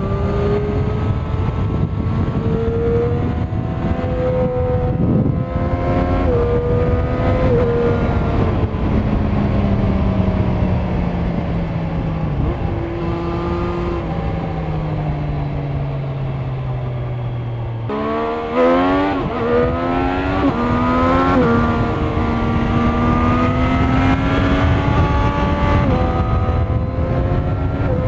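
Triumph Street Triple 765 RS's inline three-cylinder engine through the stock exhaust, heard from the rider's seat while riding. Its pitch falls slowly off the throttle, then about two-thirds through it pulls hard in several quick rising sweeps, each cut short as the next gear goes in, before settling into a steady cruise.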